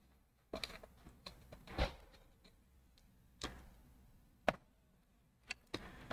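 Scattered light clicks and taps from small hand tools such as tweezers being handled, about half a dozen in all, with the sharpest click about four and a half seconds in.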